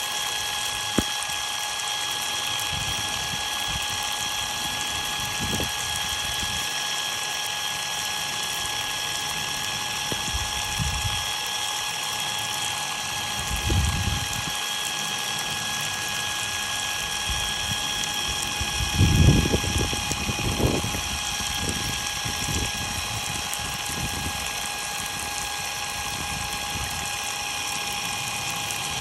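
Water spraying steadily over a cordless impact driver, with a constant high motor whine running underneath. A few brief low rumbles come about halfway through and again a little after.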